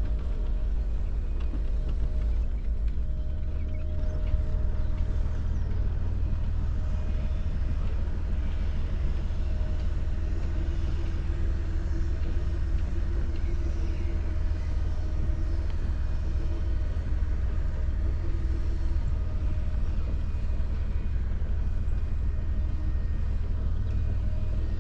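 Sailing yacht's Volvo Penta inboard engine running steadily at low throttle, a continuous low rumble as the boat motors slowly.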